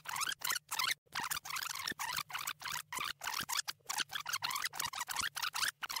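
Video-rewind sound effect: the soundtrack scrubbed backwards at high speed. It comes as a rapid run of short chopped snippets full of quick rising chirps, about three a second.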